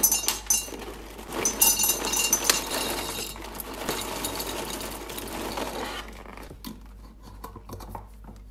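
Dry dog kibble poured from a paper bag into a glass mason jar, the pellets rattling and clinking against the glass. About six seconds in the pour stops, and a few scattered clicks follow as the jar is handled and its metal lid put on.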